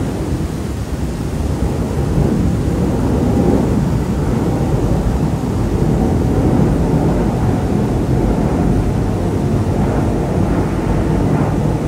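Deep, steady rumble of a jet airliner passing overhead on approach, swelling slightly a couple of seconds in.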